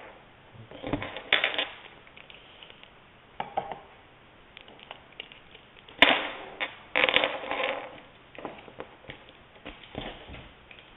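A long cable being uncoiled and handled on a wooden table: rustling of the cord with scattered clicks and clatters of its plugs against the tabletop, and a sharp knock about six seconds in as the RCA plugs land on the table.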